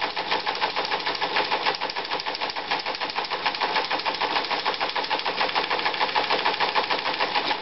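Siemens T100 teleprinter running steadily, its paper-tape reader and print mechanism clattering in a fast, even rhythm of clicks as it reads punched Baudot code and prints character by character.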